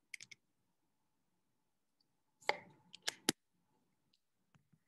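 Faint, short, sharp clicks close to the microphone: three quick light clicks at the start, then a louder cluster of four clicks about two and a half seconds in.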